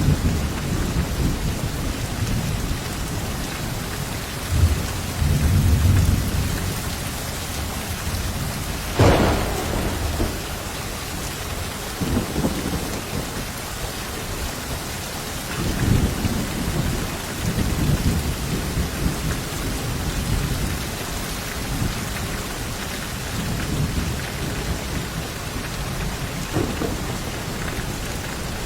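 Steady heavy rain falling, with thunder rumbling low several times. There is one sharper, nearer thunder crack about a third of the way through.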